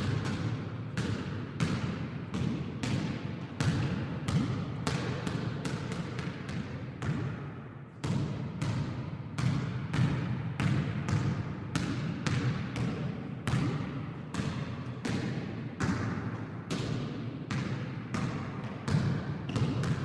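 Basketball being dribbled and bounced on a court in a one-on-one game: a long run of sharp bounces, irregular, about two to three a second, over a steady low background noise.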